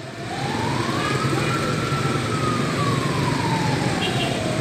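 Siren wailing slowly: one long rise in pitch and fall back over about four seconds, over a steady low rumble.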